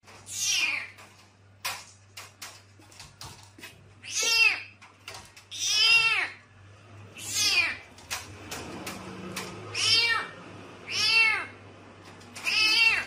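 Cat meowing seven times, long high meows each rising then falling in pitch, a second or two apart. A few light taps come between the first meows, over a steady low hum.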